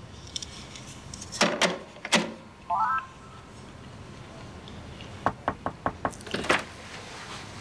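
Knocking on a door: a few loud knocks about a second and a half in, then a quick run of lighter raps a little after five seconds in, followed by louder knocks. A short rising tone sounds between them.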